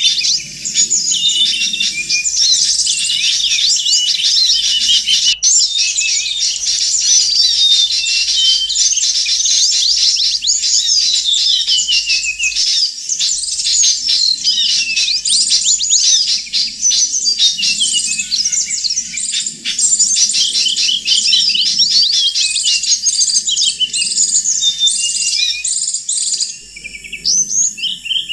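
Bird-lure recording of many small songbirds calling at once: a dense, unbroken chorus of high chirps, twitters and short trills overlapping each other.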